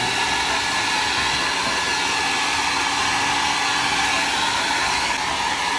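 Handheld hair dryer running steadily, blowing onto a wet dog's fur to dry it: an even, unbroken whoosh of air with a faint steady motor hum.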